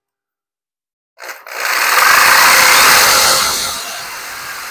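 Electric jigsaw starting about a second in and cutting through a clamped wooden board, loud at first and then easing to a lower steady buzz near the end.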